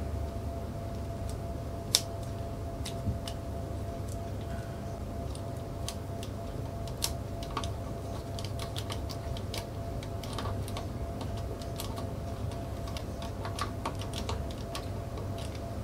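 Small, irregular metallic clicks and taps as fingers handle the parts at a slide miter saw's blade arbor, with one sharper click about two seconds in, over a faint steady hum.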